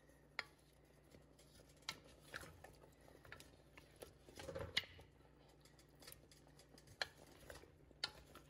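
A spoon stirring chunks of potato and carrot coated in coconut milk in an enamelled Dutch oven: faint scattered clicks and soft scrapes, busiest about four and a half seconds in.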